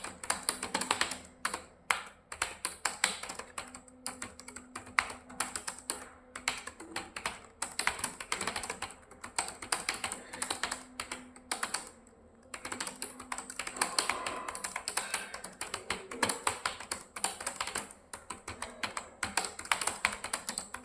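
Fast typing on a computer keyboard: a rapid stream of keystrokes that pauses briefly a few times, longest about twelve seconds in.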